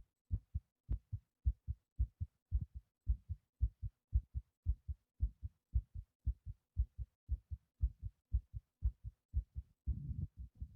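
Human heartbeat picked up close, fast paired lub-dub thumps at about two beats a second. Near the end a low rumbling rustle joins the beats.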